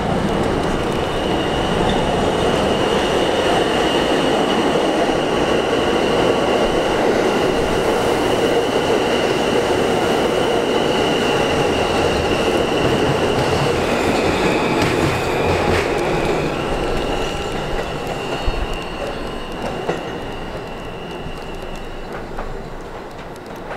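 Four-car Alstom R160A subway train rolling past and pulling away, its wheels giving a steady high-pitched squeal over the running noise. The sound fades over the last several seconds as the train recedes.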